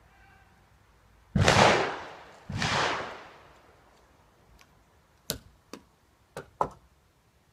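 A ramrod is pushed down the barrel of a muzzle-loading underhammer pistol twice, each stroke a loud rushing scrape that fades over about a second. Four short sharp clicks follow near the end as the rod is handled.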